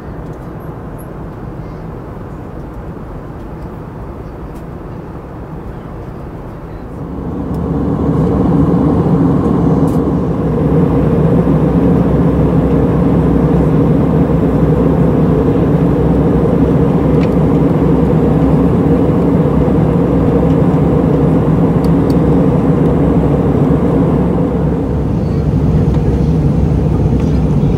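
Airbus A320 cabin noise in flight on descent: a steady drone of the engines and the rushing air, stepping up louder about seven seconds in to a steady low hum.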